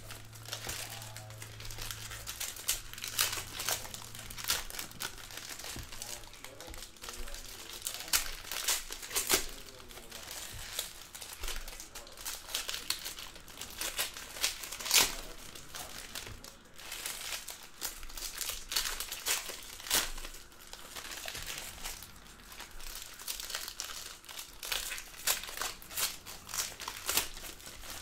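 Foil trading-card pack wrappers crinkling as packs are torn open and handled, making a busy, irregular run of sharp crackles.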